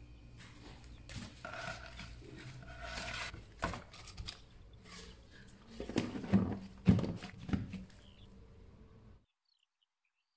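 Plastic bowl and lid handled on a countertop: scraping and rustling, then several knocks as the plastic lid is pressed down over the bowl, the loudest about two-thirds of the way in. The sound cuts off to silence near the end.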